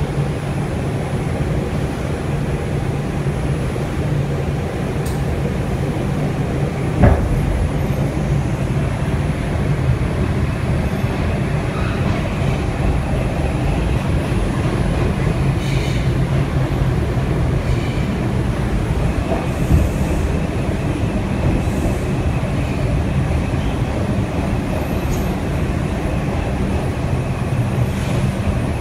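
Inside a running R142 subway car: steady rumble of the wheels on the rails with a low motor hum, and one sharp knock about seven seconds in.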